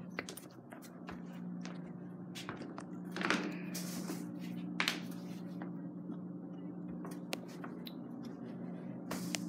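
Rustling and small clicks of a phone being handled close to its microphone, over a steady low hum.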